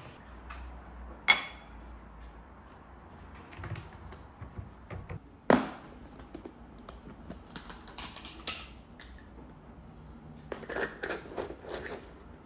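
Metal-legged bar stool being handled, with a sharp metallic clink that rings briefly about a second in, and a loud thump about halfway. Then dry dog kibble rattling as a scoop digs into a plastic storage bin, in two short spells near the end.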